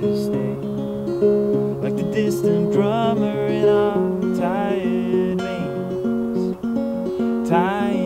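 Levin acoustic guitar playing an instrumental passage of a folk song, picked chords and held notes, with a few quick rising glides in pitch.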